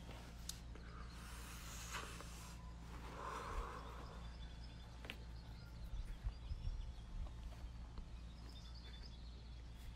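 Outdoor background noise with a steady low hum, picked up by a phone microphone. Scattered clicks and rustles from the phone being handled, with a cluster of low knocks between about six and seven and a half seconds.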